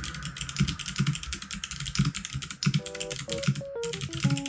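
Typing on a mechanical keyboard fitted with clicky switches: a rapid, continuous stream of sharp key clicks. Background music comes in during the second half.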